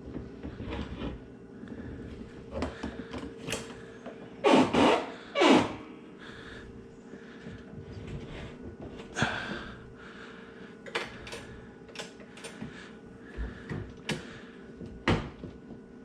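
Dishwasher being pushed and shifted into the opening under the counter: two loud scraping slides about four and five seconds in, with scattered knocks and thunks.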